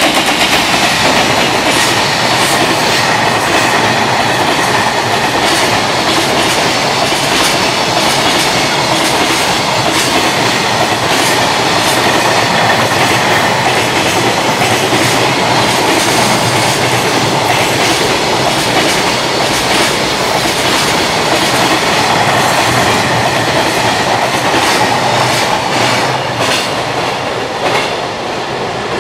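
Container freight train hauled by an EF210 electric locomotive passing through the station: a steady loud rumble of wheels on rail with a rapid clatter of clicks over the rail joints. The sound eases off near the end as the last wagons go by.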